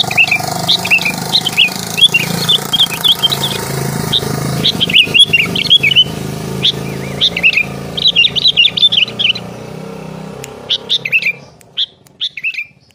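Small birds chirping: quick runs of short, high chirps over a steady low hum. The hum stops near the end, leaving a few last chirps.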